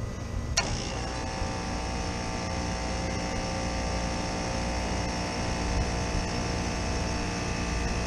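A sharp click about half a second in, then a walk-in freezer condensing unit's compressor starting and running with a steady hum and several steady whining tones.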